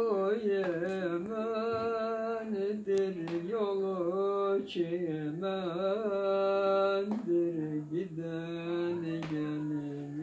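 An old man singing unaccompanied in a slow, free-rhythm style. He holds long notes and bends them with wavering ornaments, pausing briefly for breath between phrases.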